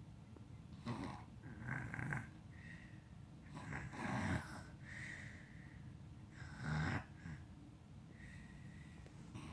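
Heavy breathing of a sleeper: snoring breaths every two to three seconds, the loudest about four and seven seconds in, with a thin whistle between some of them.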